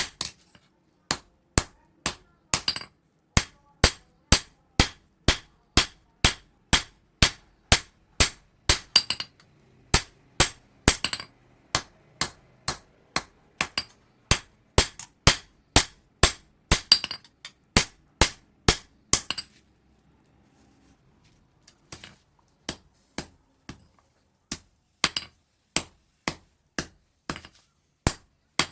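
Blacksmith's hand hammer striking steel on an anvil at about two blows a second, forging a knife blade from an old leaf spring. Each blow rings sharply. The hammering stops for about two seconds about two-thirds of the way in, then resumes at a slower, lighter pace.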